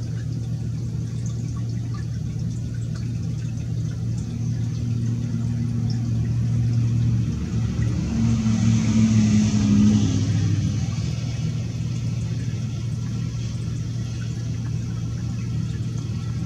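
Steady low hum, with a vehicle passing by that swells and then fades about halfway through.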